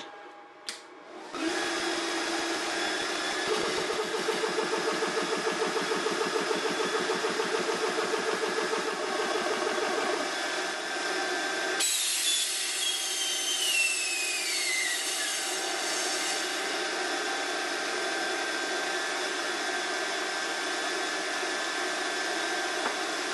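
Smaco portable high-pressure PCP air compressor starting up about a second in and running steadily while filling an air rifle, with a rhythmic pulsing for several seconds. About halfway through, a brighter hiss joins in with a whistle that falls in pitch over a few seconds, and the compressor keeps running.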